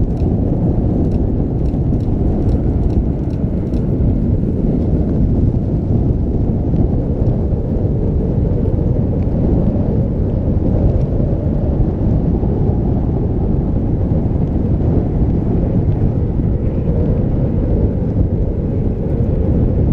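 Wind buffeting the microphone: a loud, steady, low rumble that does not change, with a few faint clicks in the first few seconds.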